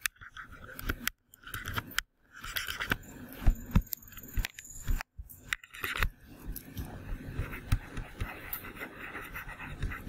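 Stylus scratching and tapping on a pen tablet while handwriting, an irregular run of small clicks and scrapes.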